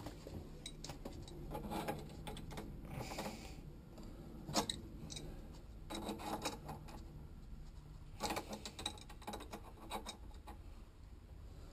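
Scattered light clicks, taps and rubbing from handling a copper pipe and a chrome compression elbow while the fitting is tightened by hand, with one sharper click about four and a half seconds in.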